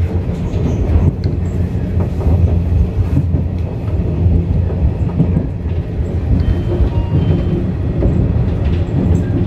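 415 series electric train running along the track, heard from inside the front cab: a steady low rumble of wheels on rail with a few light clicks.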